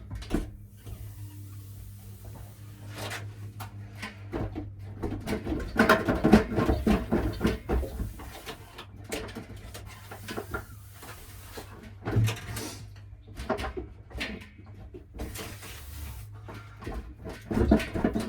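Hands working a flexible water hose onto a fitting lubricated with WD-40: irregular rubbing, creaking and knocks, heaviest a few seconds in and again near the end, over a low steady hum.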